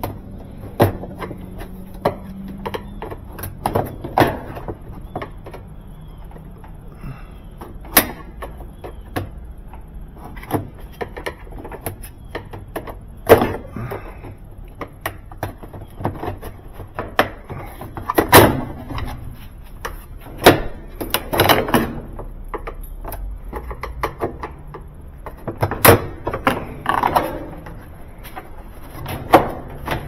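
Screwdriver prying at the clips of a top-load washer's plastic tub ring: irregular clicks, scrapes and sharp knocks of metal on plastic and sheet metal, a few of them louder than the rest.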